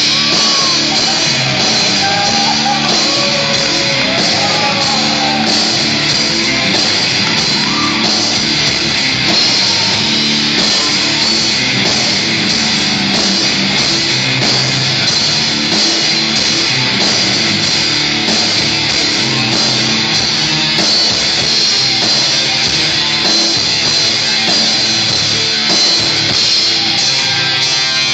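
Live rock band playing loud and steady, with a voice singing over the instruments in the first several seconds.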